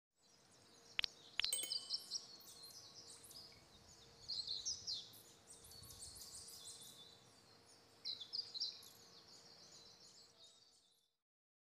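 Small birds chirping in short high clusters, with two sharp clicks about a second in and a faint steady hum underneath; it all cuts off shortly before the end.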